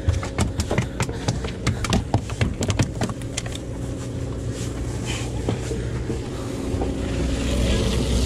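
Boat engine running steadily under a quick, irregular clatter of sharp knocks and clicks that thins out after about three seconds. The engine and the rushing noise grow louder near the end.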